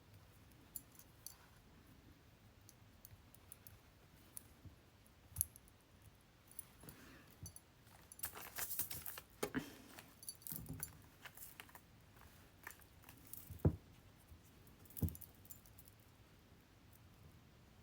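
Small clicks and clinks of beads and jewelry-making tools being handled, busiest around the middle, with a few sharper taps.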